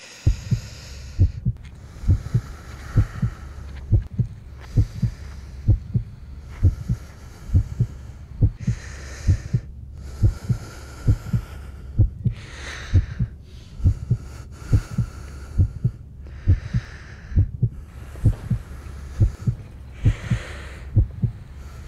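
Heartbeat sound effect: low paired thumps repeating steadily, about one pair a second, with a higher hiss that swells and fades every second or two.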